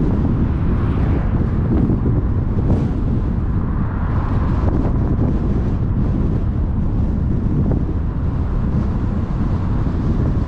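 Steady wind rumble buffeting the microphone of a camera moving along a street, with the travel noise of the vehicle carrying it underneath.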